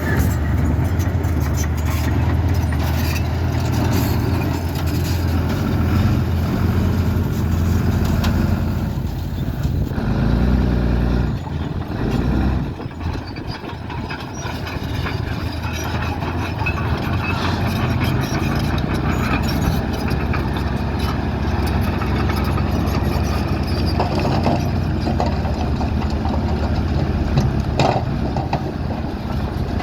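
Heavy diesel engines of a bulldozer and dump trucks running, with scattered knocks and clanks on top. The engine noise dips briefly about twelve seconds in.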